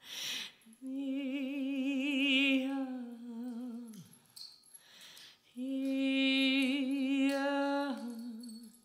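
A woman's voice singing two long held notes with vibrato, each lasting about two and a half seconds, the first sliding down in pitch as it ends. A short hiss comes just before the first note.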